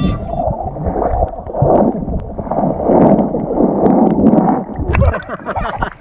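Muffled water sloshing and gurgling heard through an action camera held under the surface of a shallow river, dull and low with a few sharp knocks. About five seconds in the sound brightens into clearer splashing as the camera comes up at the surface.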